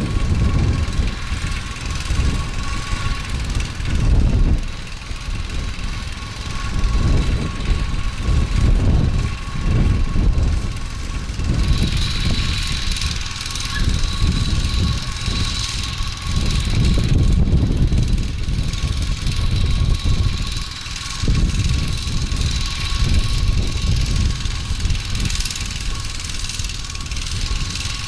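Strong gusty wind buffeting the microphone in uneven rumbling surges, over the steady hum of a walk-behind cultivator's engine running at a distance.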